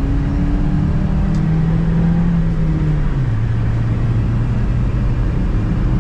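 Car engine and road noise heard from inside the moving car's cabin; the engine note rises slightly, then drops about three seconds in.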